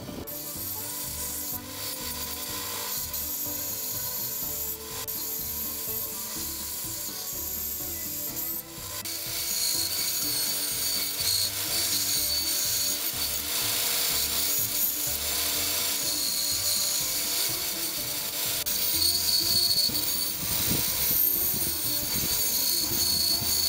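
Bandsaw cutting MDO plywood: the blade runs steadily with a rasping cut as letters are fed through it, and the cutting grows louder about nine seconds in.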